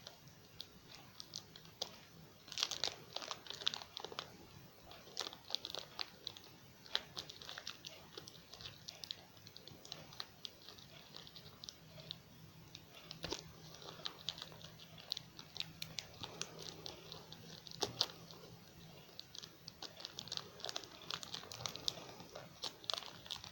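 Plastic packaging crinkling, with scattered small clicks and taps as parts of a model airliner are handled and fitted.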